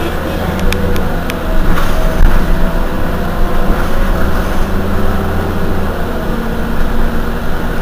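Heuliez GX 127 city bus's rear-mounted diesel engine idling steadily while the bus stands at a stop, a low hum, with a few short clicks about a second in.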